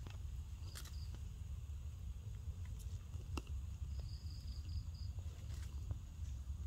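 Forest-floor ambience: a steady low rumble, a few faint clicks and rustles of dry leaf litter as a baby macaque picks about in it, and two short runs of quick high chirps, the second about four seconds in.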